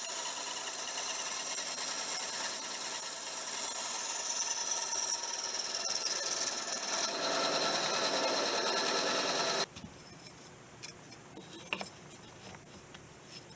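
Bandsaw running and sawing lengthwise through a wooden tool handle at a shallow angle: a steady machine whine mixed with the blade rasping through the wood. It cuts off suddenly about ten seconds in, leaving a few light knocks.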